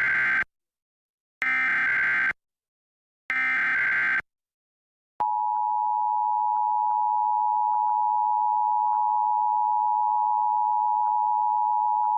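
Emergency Alert System Required Monthly Test: three short bursts of screeching SAME digital header data, each about a second long with a gap between. About five seconds in, the steady two-tone EAS attention signal starts and holds.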